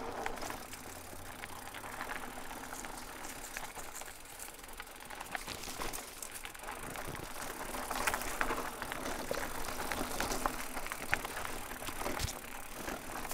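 Haibike SDURO HardNine 1.5 hardtail e-mountain bike riding over a trail: steady tyre noise on loose ground, with frequent clicks and rattles from the bike.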